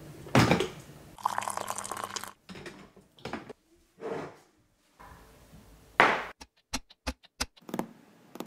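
A string of kitchen sounds: liquid pouring and dripping at a drip coffee maker, a ceramic mug set down on a countertop, then several quick light clicks near the end.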